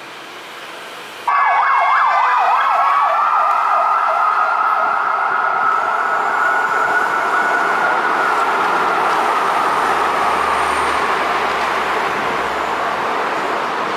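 A siren starts suddenly, warbling rapidly up and down for about two seconds, then holds one long tone that slowly rises and falls over a growing wash of traffic-like noise.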